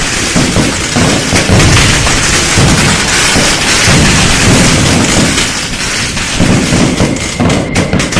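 A dense, continuous barrage of firecrackers and fireworks going off, with rapid overlapping cracks over repeated low booms.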